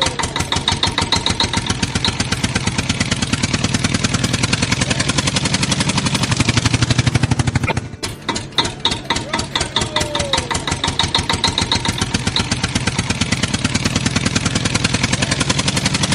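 Tractor engine sound effect running with a fast, even chugging. It breaks off briefly about eight seconds in and starts over.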